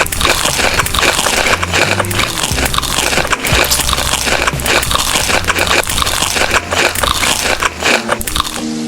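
Loud, close-up chewing and biting of food, full of dense crackly clicks and crunches.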